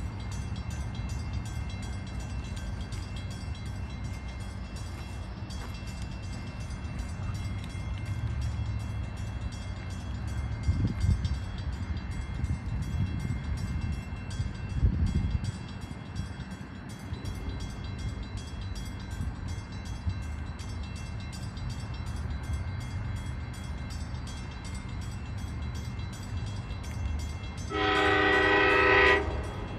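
A train horn sounds one blast of about a second near the end, from a train approaching down the line. Before it there is a steady low rumble.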